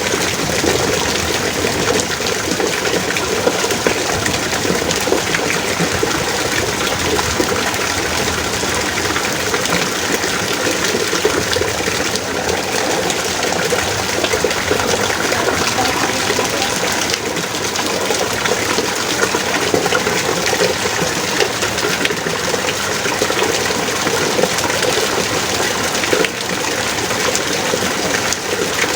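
Heavy rain pouring steadily, a dense even hiss of countless drops with no let-up.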